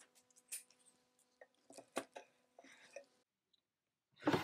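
Painter's tape being handled and torn: a few soft crinkles and short tearing sounds over a faint steady hum, which stops about three seconds in. A louder rubbing sound starts right at the end.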